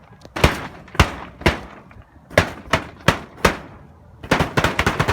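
A tarp snapped hard again and again, each snap a sharp crack standing in for gunfire: single cracks about half a second apart, then a quick burst of cracks near the end like automatic fire.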